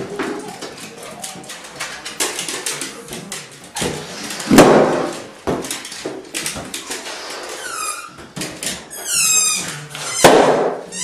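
A dog playing with rubber balloons on a hard floor: scratchy rubbing and clicks as it mouths and pushes them. There is a louder burst about halfway through, and a run of high, falling squeaks later on.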